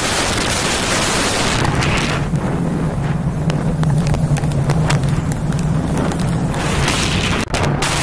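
Heavy wind buffeting on a camera microphone held outside a moving car, over the low rumble of the car on the road, with a steady low hum setting in about one and a half seconds in.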